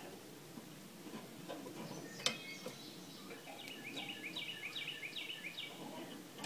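Metal tongs clicking against the steel cooking grate of a Weber kettle grill as beef ribs are set down, with one sharp click about two seconds in. Then a songbird sings a quick run of repeated falling chirps, about four a second, for roughly two seconds.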